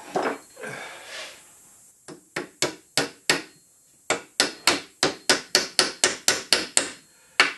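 Small hammer tapping a nail through a little wooden model wheel into its wooden axle: a long run of light, quick taps, about three to four a second, with a short pause after the first few.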